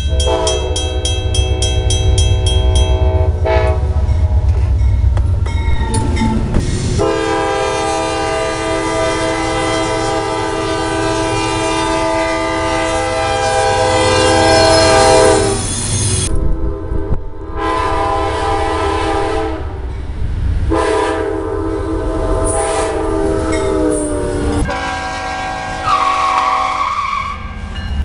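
Diesel locomotive air horn sounding a series of long blasts and one shorter blast, over the low rumble of a passing train.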